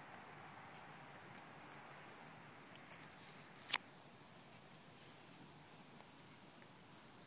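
Faint, steady, high-pitched chirring of insects such as crickets, with one sharp click a little past halfway.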